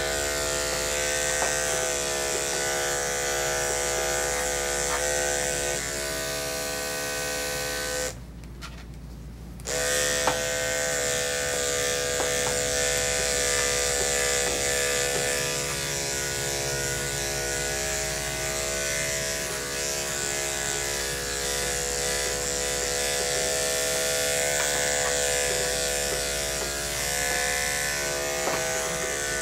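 Andis 5-speed electric dog grooming clippers running with a steady hum. They cut off about eight seconds in and start again a second and a half later.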